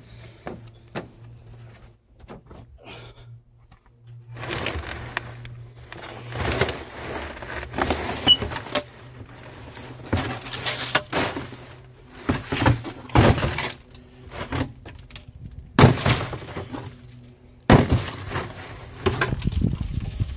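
Loose scrap clattering and crashing as it is handled, in a run of separate noisy bursts with short pauses between, over a faint low steady hum.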